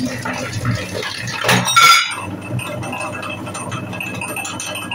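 Motor-driven meat grinder running with a steady hum, its auger crushing wax crayons with crunching and clicking. Just under two seconds in there is a brief louder squealing grind.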